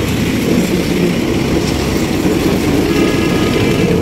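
Steady low engine rumble and road noise from a vehicle being ridden along a road.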